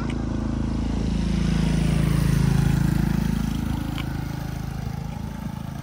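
An engine passing close by: a low, steady motor hum that grows louder to a peak about two and a half seconds in, then fades away.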